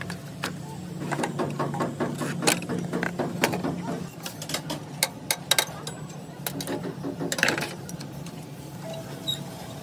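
Irregular mechanical clicks and knocks, like tools at work on metal parts, over a steady low hum.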